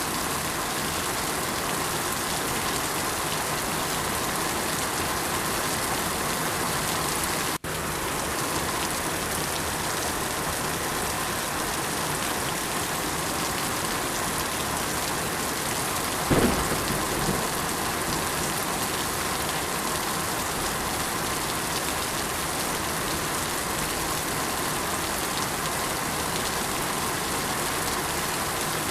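Steady, even rainfall. It cuts out for an instant about a quarter of the way in, and about halfway through a brief low thump rises above the rain.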